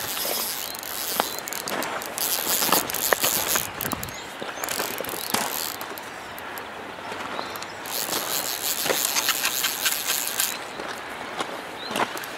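Lamson Guru fly reel ratcheting in several short runs of rapid clicking as line goes on or off the spool while a hooked brown trout is played. The longest run comes about eight seconds in.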